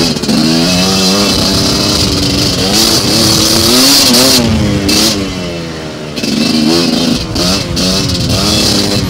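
2019 GPXMoto TSE250R two-stroke dirt bike engine being ridden, its revs rising and falling repeatedly as the throttle is worked, easing off briefly about six seconds in before picking up again.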